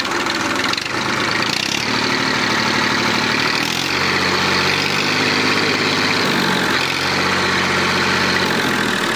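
Massey Ferguson 1035 DI tractor's three-cylinder diesel engine running, throttled up from idle about two seconds in and raised again near four seconds, with a brief dip near seven seconds. It is being revved in place to show its pull.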